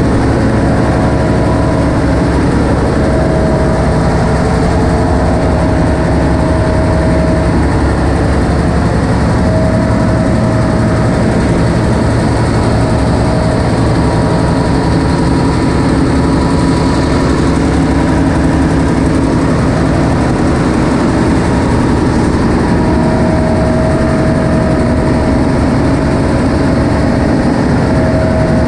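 Large ship's diesel engine running steadily, heard up close, a loud continuous machine drone with a higher whine that comes and goes.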